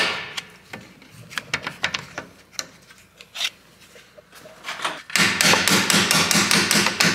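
Steel hammer tapping a suspension bolt into its aligned hole in a car's rear suspension: a few scattered light metal clicks, then from about five seconds in a quick run of sharp metal-on-metal strikes, about six a second.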